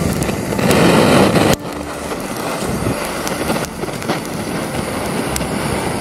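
Handheld gas torch blowing a hissing flame into kindling to light a campfire. The noise is loudest for about a second and a half, then drops suddenly and goes on at a lower level.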